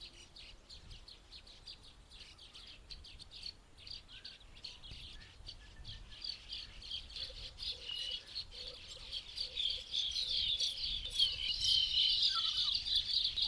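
A chorus of small birds chirping and twittering in rapid, overlapping high notes, growing louder about ten seconds in.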